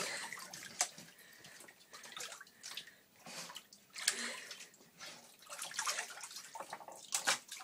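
A Chesapeake Bay retriever splashing in a filled bathtub as it tries to fish a bone off the bottom, with irregular splashes, sloshes and drips; the sharpest splashes come about a second in, around the middle, and near the end.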